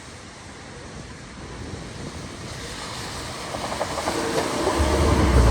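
A heavy road vehicle's engine approaching and growing steadily louder, with a deep rumble and a steady hum coming in near the end.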